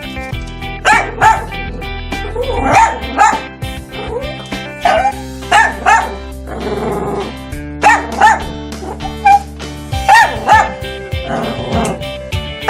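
A dog barking repeatedly in short double barks, every second or two, over steady background music.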